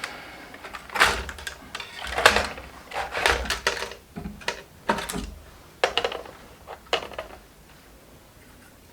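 A run of knocks, clacks and scrapes from objects being handled on a workbench, close together at first and sparser later, stopping about seven seconds in.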